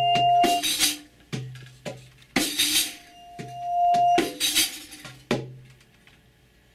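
Free-improvised music: a bowed vibraphone bar sounds a sustained tone that swells in and fades, twice, over a low note. Short shaken-percussion rattles fall between the swells, and the music dies down to near quiet near the end.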